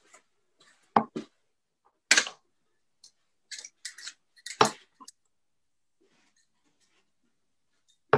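Steel-tip darts clicking and knocking against a bristle dartboard as they land and are pulled out. A scatter of short, sharp clicks, the loudest about one, two and four and a half seconds in, with another near the end.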